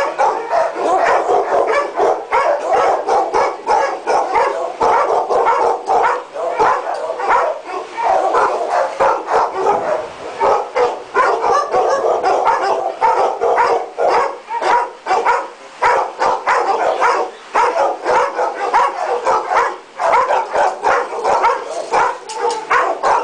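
Many shelter dogs in chain-link kennel runs barking over one another, a loud continuous din of overlapping barks and yips with no break.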